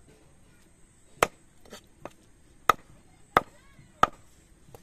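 Large fish-cutting knife chopping through fish on a wooden chopping block: four sharp chops, the first about a second in and the last three quicker, about two-thirds of a second apart.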